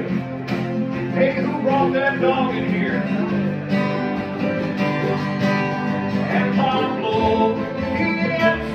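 Bluegrass jam band playing: acoustic guitar and other plucked string instruments picking a lively tune.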